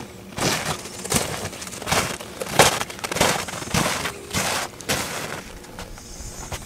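Footsteps crunching in snow, one step about every two-thirds of a second.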